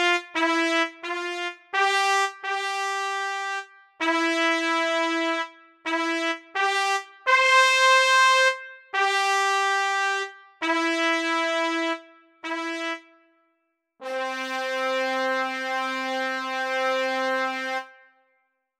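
Solo trumpet playing a slow melody, one note at a time with short breaks between notes, ending on a long low note held for about four seconds.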